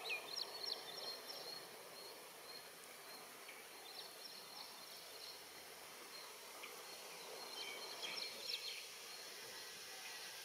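Small birds chirping in three short bursts of quick high notes: near the start, about four seconds in, and near the end. Under them is a faint, steady background hiss.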